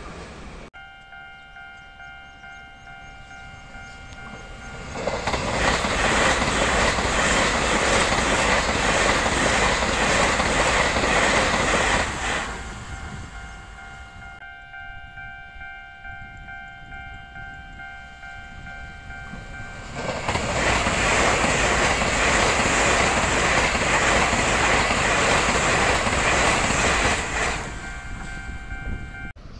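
Taiwan Railway trains passing at high speed: a loud rush of wheel and air noise builds suddenly and lasts about seven seconds. It comes twice, about five seconds in and again about twenty seconds in. In the quieter stretches around the passes, a steady high tone of several pitches is heard.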